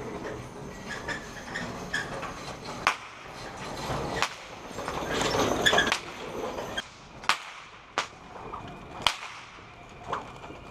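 A long whip cracked again and again by a rider on horseback. About seven sharp cracks, irregularly spaced a second or so apart, starting about three seconds in.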